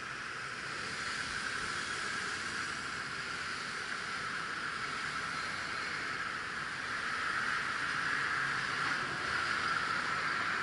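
Steady street traffic noise, a hiss that swells a little past the middle as a vehicle crosses the intersection.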